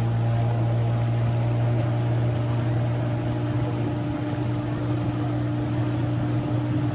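A boat's motor running at a steady speed, a low even drone with no change in pitch.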